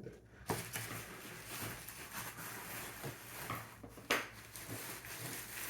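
Scissors cutting the fuselage loose from its packaging, with continuous rustling and scraping of plastic and cardboard, scattered clicks and a sharp click about four seconds in.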